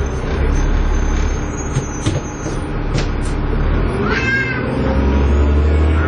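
Dennis Trident 2 double-decker bus heard from inside the saloon: the engine's low drone with a thin high whine, the 'hoover' sound, in the first half, and a few knocks and rattles. About four seconds in the drone eases off and builds again a second later, while a short squeal rises and falls.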